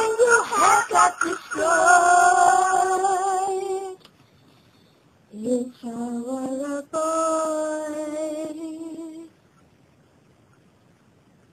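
Young girls singing long held notes in two phrases: the first ends about four seconds in, the second runs from about five to nine seconds in. Then only faint room hiss.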